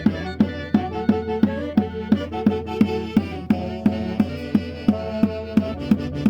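Andean caña y quinto festival music: a drum beaten in a steady rhythm of about three strikes a second, each stroke dropping slightly in pitch, under a sustained melody.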